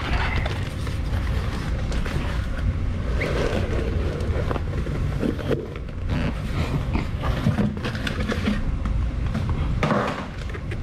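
Cardboard boxes and packaging being handled and set down, with scattered rustles and light knocks over a steady low rumble.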